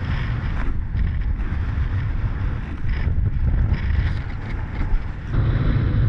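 Wind buffeting an action camera's microphone: a steady low rumble and rush that gusts harder a little after five seconds in.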